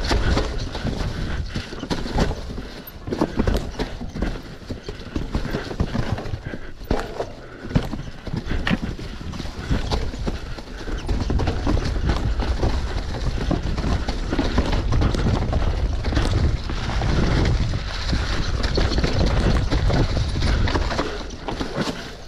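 Downhill mountain bike riding a rough trail: tyres over the ground, with the bike rattling and knocking sharply and often over a steady rumble of wind on the GoPro's microphone.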